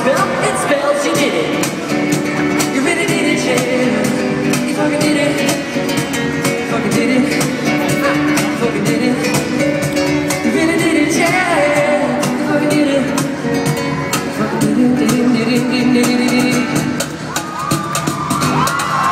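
Live pop band playing: a male voice singing over guitar and drums, heard from the audience in a large hall.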